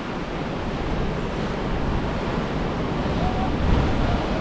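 Ocean surf breaking and washing up a sandy beach, with wind buffeting the microphone as a steady low rumble.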